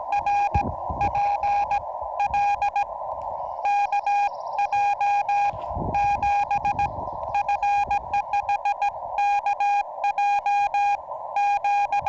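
Morse code from a Yaesu FT-891 transceiver: a steady tone keyed in quick dots and dashes, with the hiss of the receiver's narrow CW passband between the characters. A few low knocks sound near the start and again about six seconds in.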